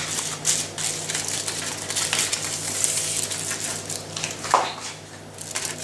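Aluminium foil crinkling and crackling as it is folded and crimped around a food parcel by hand. A brief falling squeak about four and a half seconds in.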